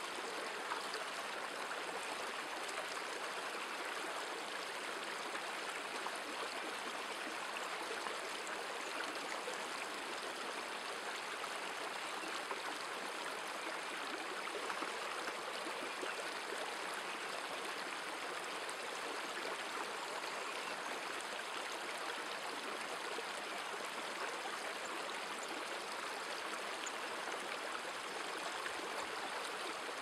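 Shallow forest stream running over rocks: a steady, unchanging rush of flowing water.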